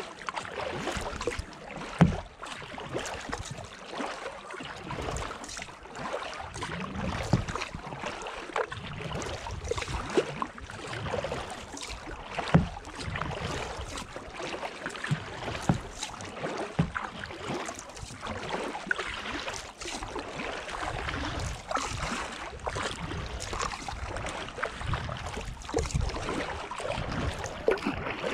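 Kayak paddling on calm water: paddle blades dipping and splashing with dripping water, and a few sharper knocks, the loudest about two seconds in and another near halfway.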